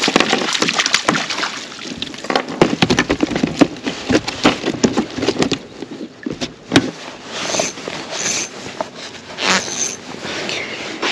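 Freshly landed trout thrashing and splashing in a landing net beside a kayak, with many irregular sharp knocks and clatter as the net and rod are handled.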